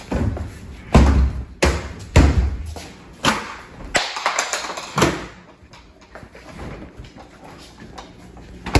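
A series of heavy thumps and knocks, about six in the first five seconds, then only light scattered knocks and handling sounds.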